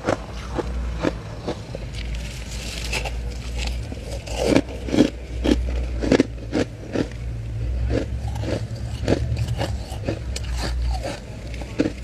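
Freezer frost crunching between the teeth as it is bitten and chewed: an irregular run of crisp crunches, several a second, loudest about four to five seconds in, over a steady low hum.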